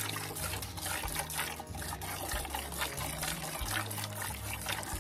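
Streams of milk squirting into a bucket as a cow is milked by hand, a rhythmic hiss of squirts about three times a second.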